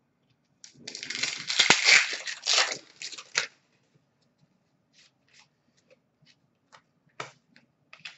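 A trading-card pack wrapper being torn open and crinkled for about three seconds, followed by scattered light taps and slides of cards being handled.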